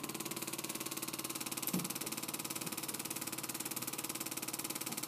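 PulStar computerized chiropractic adjusting instrument running its automatic cycle, a rapid, even train of light mechanical taps that vibrate a spinal segment. It stops on its own, abruptly, at the very end.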